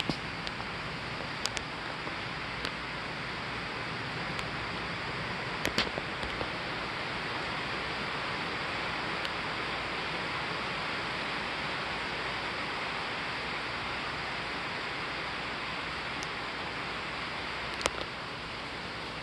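Steady rushing hiss of an approaching night thunderstorm, with a few short sharp ticks; the loudest ticks come about six seconds in and near the end.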